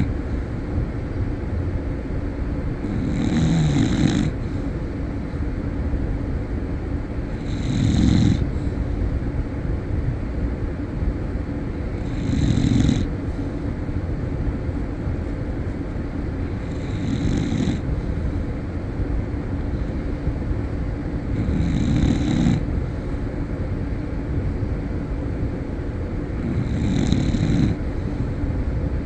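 Slow, regular snoring: one loud snore about every four and a half seconds, each lasting about a second, six in all, over a steady background noise.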